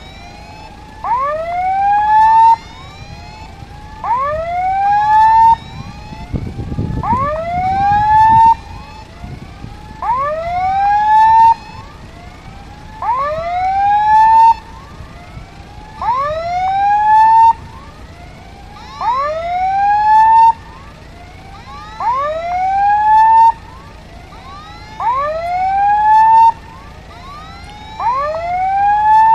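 Railway level crossing warning signal sounding: a rising electronic whoop about a second and a half long, repeated every three seconds, warning that a train is coming. A brief low rumble comes in about seven seconds in.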